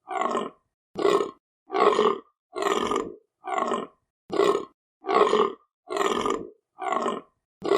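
Deer stag calling in a steady series of short, rough grunting roars, about one every 0.8 seconds, each cut off cleanly into silence.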